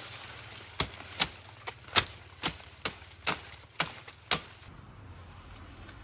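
A blade chopping sugarcane: a run of about nine sharp strikes at roughly two a second, ending shortly before the last second and a half.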